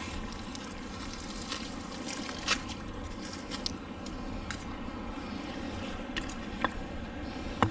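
Steady rush of wind buffeting the microphone, with about half a dozen short sharp clicks and knocks scattered through it, the loudest one near the end.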